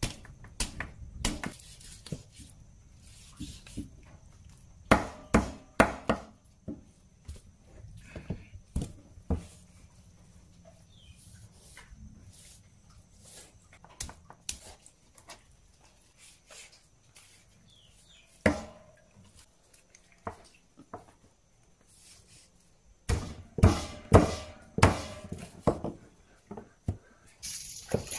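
Long knife cutting and chopping through a singed dog carcass, meat and bone, on a hard board: scattered knocks and thuds, with a run of quick chops a few seconds before the end. Water splashes onto the board near the end.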